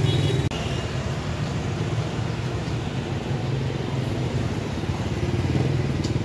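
Street traffic noise: motorbike engines running by, with a steady low hum.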